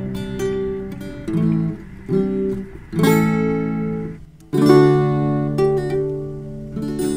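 Acoustic guitar music: a run of strummed chords, each struck and left to ring and fade before the next.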